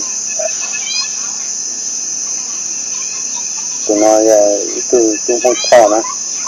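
Steady high-pitched drone of insects. A few short pitched calls break in about four seconds in and again near the end.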